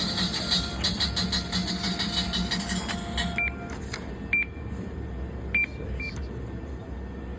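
Slot machine spinning with a rapid run of clicking that stops about three and a half seconds in, followed by a few short electronic beeps over a steady casino hum.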